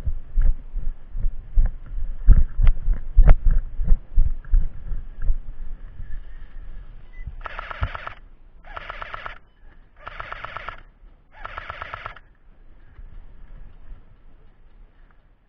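Heavy thumps and knocks of someone running through dry leaves with the camera jolting for the first several seconds, loudest a couple of seconds in. Then four evenly spaced short full-auto bursts from an airsoft electric rifle, each about two-thirds of a second long.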